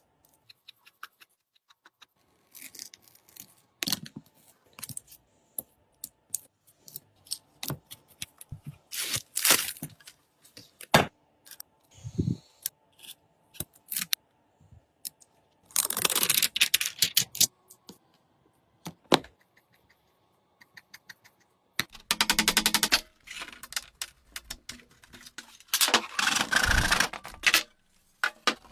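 Small hand tools working on an iPhone: scattered sharp clicks and taps, with three bursts of dense rapid clicking, each a second or two long, about halfway through and twice near the end.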